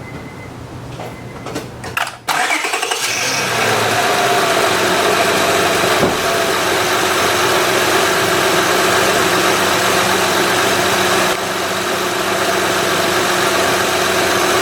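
A 2006 Honda Odyssey's 3.5-litre V6 starting: a few clicks, then the engine catches suddenly a little over two seconds in, flares briefly and settles into a steady idle.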